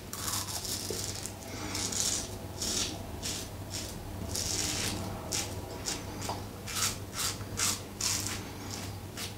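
Alpha Outlaw Evolution stainless-steel double-edge safety razor scraping lathered stubble off the upper lip, a quick series of short strokes going against the grain. A low steady hum runs underneath.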